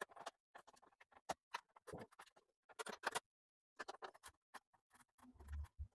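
Faint, irregular clicks and scrapes of a screwdriver undoing screws in an Epson L1300 inkjet printer's plastic casing, with a soft low bump near the end.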